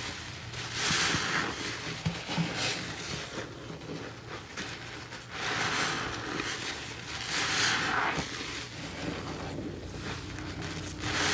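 A wet grout sponge loaded with thick, foamy cleaner paste being squeezed and kneaded by gloved hands in a sink of soapy water: squelching and sloshing that swell with each squeeze, about three times.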